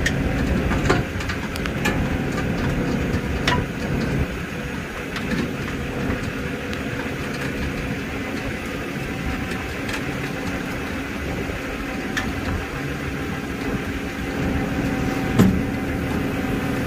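Rollback tow truck's engine running steadily while its winch drags a car up the tilted bed, with a few scattered knocks and a louder knock near the end.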